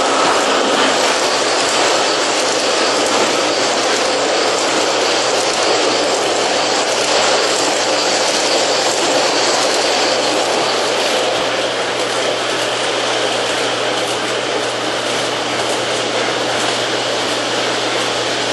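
Lionel O-gauge model trains running on three-rail tubular steel track close by: a steady rolling rumble of wheels on the rails and motors whirring, over a steady low hum. It eases off slightly about two-thirds of the way in as the trains move away.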